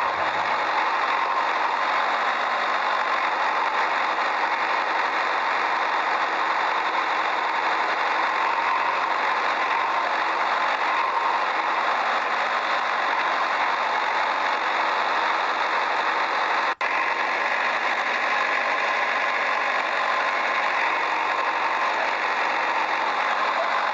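A small motor running steadily with a rough, even whir, cutting out for an instant about 17 seconds in.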